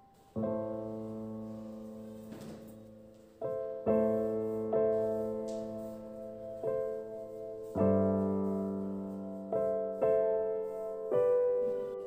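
Background piano music: slow chords, each struck and left to fade before the next, about eight in all.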